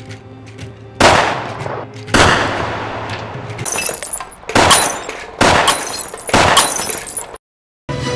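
A handgun fired five times at uneven intervals, each shot a sharp crack with a long echoing tail, over dramatic background music; the sound cuts out abruptly near the end.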